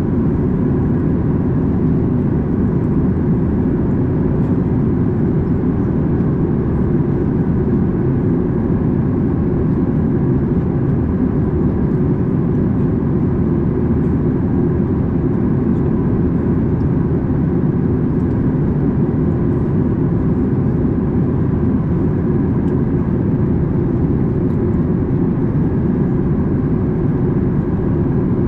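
Steady cabin noise inside a Boeing 737 MAX 8 airliner in flight: a deep, even rumble of airflow and CFM LEAP-1B turbofan engines, with a faint steady whine above it.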